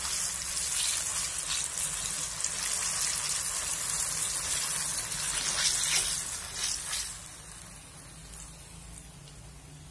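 Batter-coated jackfruit fritters sizzling in hot oil in a deep frying pan, with scattered pops. About seven seconds in the sizzle falls away sharply as the fritters are lifted out of the oil in a wire strainer.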